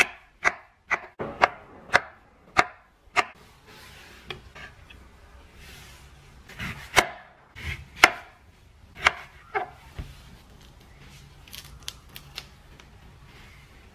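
Chef's knife cutting soft mango into cubes on an end-grain wooden cutting board, the blade knocking on the wood about twice a second. The knocks stop after about three seconds and a second group of cuts comes about halfway through.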